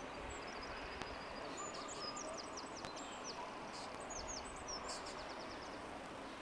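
Steady outdoor background noise with a small bird chirping high and twittering, ending in a quick run of rapid notes.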